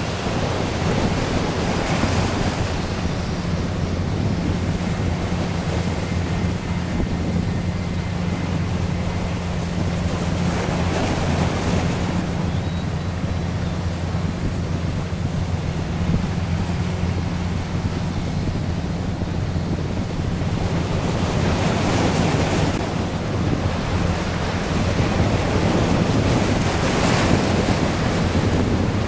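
Airbus A319 twin-engine jet airliner at takeoff power through its takeoff roll and climb-out: a steady jet roar with a low drone underneath and a few brief swells. Wind buffets the microphone.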